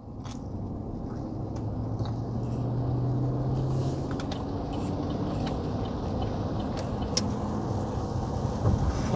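Pickup truck on the move, heard from inside the cab: a steady engine hum and road noise that build over the first few seconds and then hold, with a few light clicks and rattles.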